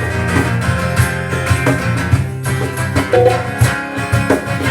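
Rock band playing an instrumental stretch between sung lines, with guitar to the fore and regular beats underneath.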